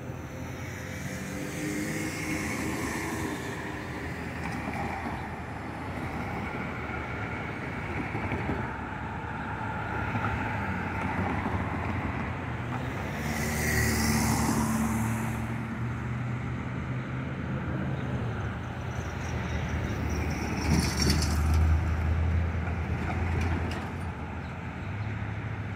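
Road traffic of cars and trucks driving past across a railroad crossing: engines and tyre noise, swelling with two louder passes, one about halfway through and a bigger one near the end, with a heavier truck engine drone toward the end.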